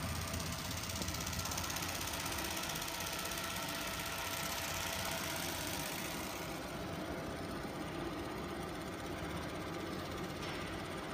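Steady hum and hiss of workshop machinery running, with the high hiss thinning out a little past halfway through.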